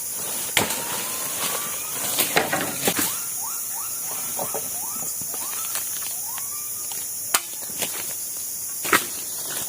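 Tropical forest ambience with a steady high insect drone. Several sharp knocks or snaps break through it, and a series of short rising whistled calls repeats about twice a second through the middle.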